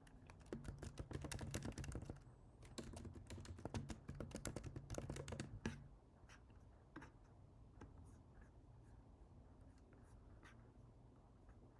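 Computer keyboard typing in two quick runs over the first six seconds, then a few scattered single clicks.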